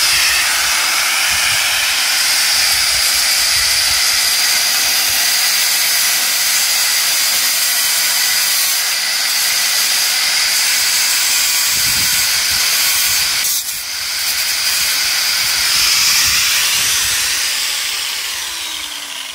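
Corded angle grinder with a cutting disc cutting into the steel of a stripped moped frame: a loud, steady, high-pitched grinding hiss with a whine. It eases for a moment about two-thirds of the way in, picks up again, then tapers off near the end.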